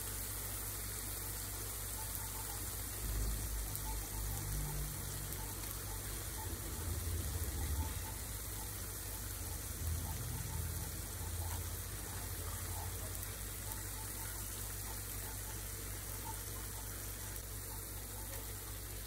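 Onion-tomato masala sizzling gently in a non-stick pan on the stove, a steady hiss, with a few soft low knocks as boiled eggs are set into it.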